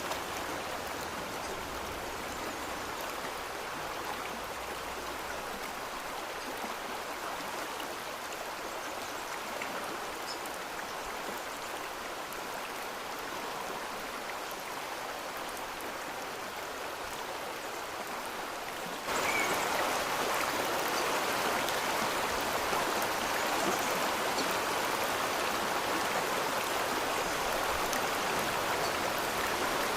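Steady rushing of a stream's running water. The sound jumps suddenly louder about two-thirds of the way through.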